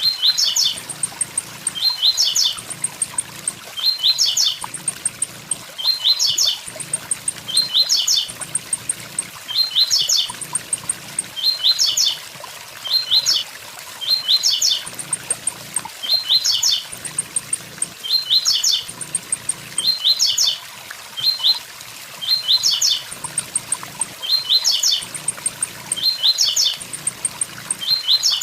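Blue-black grassquit (tiziu) singing its 'tui tui zel zel' phrase over and over, a quick cluster of high notes about every second and a half, over the steady rush of a waterfall.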